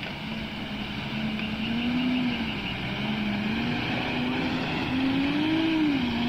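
Pickup truck engine revving under load as it churns up a deep mud slope. Its note rises and falls as the throttle is worked, and it grows louder as the truck comes closer.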